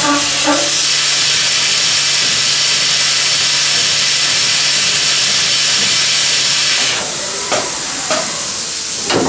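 Milling machine at work with a loud, steady hiss over a faint hum and a thin high whine. About seven seconds in, the hum and whine stop, the hiss drops a little, and a few short knocks follow.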